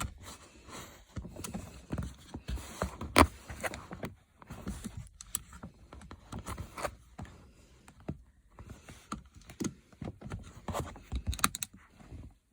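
Flat screwdriver prying open the plastic casing of a 2010 Hyundai Santa Fe seat belt buckle: scattered clicks, taps and scrapes, with a sharp click about three seconds in and a quick run of clicks near the end.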